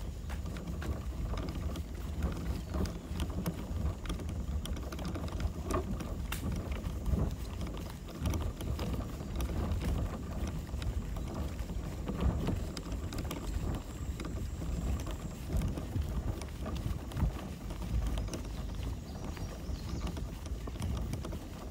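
Kayak being paddled on calm water, with scattered light clicks and knocks, under a low rumble of wind on the microphone.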